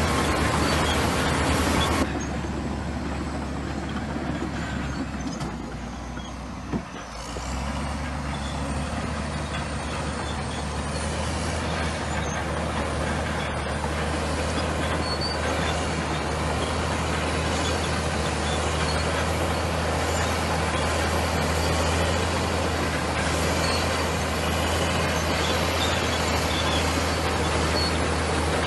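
Crawler bulldozer's diesel engine running under work, a steady low drone with a noisy clatter over it. The level drops suddenly about two seconds in, a short knock comes near seven seconds, and then the engine builds back up and runs steadily.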